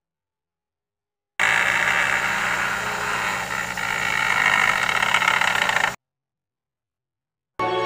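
A loud, steady hiss with a low hum under it, cut in abruptly after about a second and a half of dead silence and cut off just as abruptly about four and a half seconds later.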